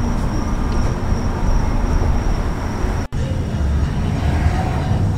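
Steady road and wind rumble of a car driving along, heard from inside the car, broken by a brief gap about three seconds in.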